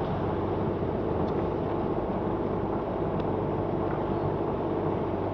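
Small boat's engine running steadily while under way, a constant even hum.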